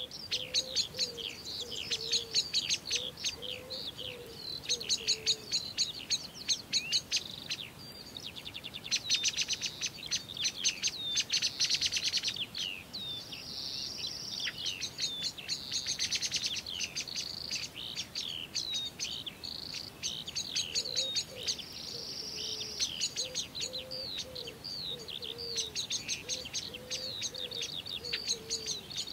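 Morning chorus of many songbirds singing and chirping at once, with a lower, repeated wavering call underneath in the first few seconds and again near the end.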